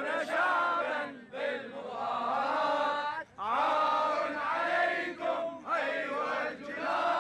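Crowd of men chanting protest slogans in unison, in phrases about two seconds long with brief breaks between them.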